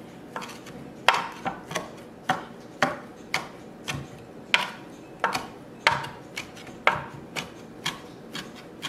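Chef's knife mincing fresh cilantro leaves on a cutting board: sharp knocks of the blade on the board in a steady rhythm, about two a second.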